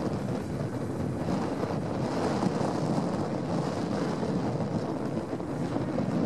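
New Holland TS115 tractor's diesel engine running steadily under load while pulling a mounted plough through the soil, with wind buffeting the microphone.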